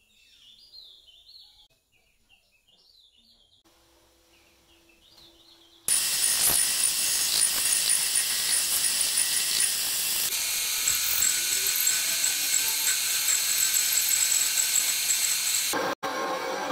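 Faint bird chirps, then about six seconds in a metal lathe starts cutting: a loud, steady hiss with a thin high ringing as a parting tool grooves and cuts a ring off a spinning metal tube.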